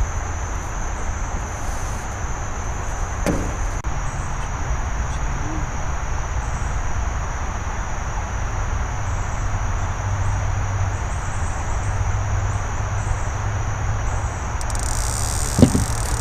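Steady high chorus of night insects over a constant low rumble and hiss, with a knock near the end.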